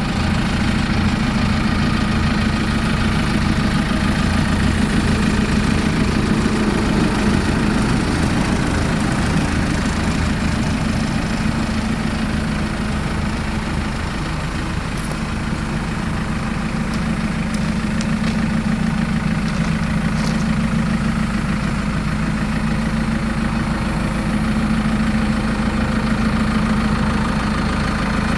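2008 JCB 3CX backhoe loader's diesel engine idling steadily.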